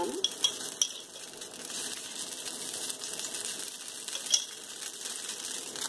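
Millet pancake batter sizzling and crackling on a hot iron tawa, a steady hiss dotted with small sharp clicks, one louder click about four seconds in.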